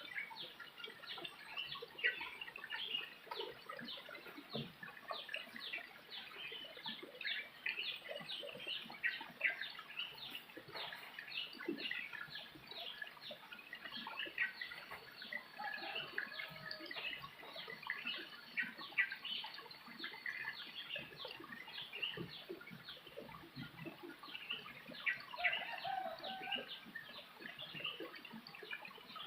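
A dense chorus of birds chirping, many short quick chirps overlapping throughout, with a few lower, longer calls mixed in.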